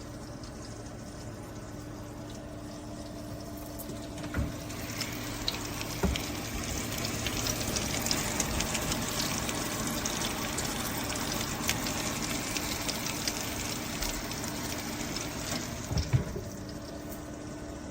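Nuwave Bravo Pro air fryer toaster oven running: a steady fan hum, joined about four seconds in by a louder crackling hiss that eases off near the end, with a few knocks along the way. The owner finds the unit unusually loud for its quality, saying it sounds like a truck.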